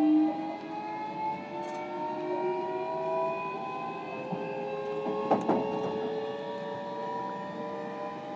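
Inside a JR Kyushu 305 series EMU motor car, the Toshiba permanent-magnet-motor VVVF traction drive whines with several tones rising slowly together in pitch as the train accelerates. A couple of sharp knocks come about five seconds in.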